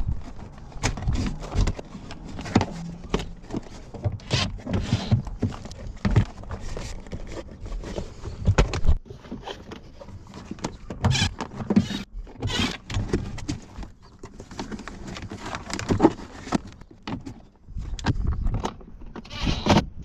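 Irregular knocks, clicks and rustling of hands working at a van's interior trim and carpet padding to feed a wire through.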